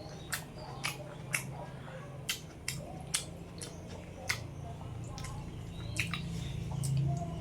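Close-miked chewing, with sharp wet mouth clicks and smacks at irregular intervals, about eight in all.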